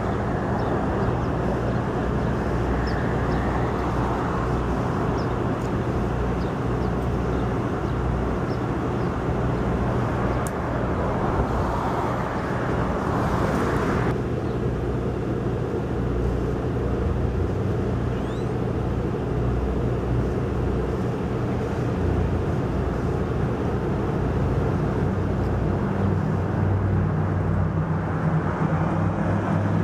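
Diesel locomotive engine running under the steady rumble of a passing passenger train. A hiss cuts off abruptly about halfway through, and the engine note rises near the end.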